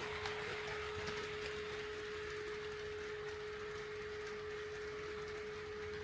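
HO-scale model train running on the layout: a steady single-pitched electric hum, with a few light clicks in the first second.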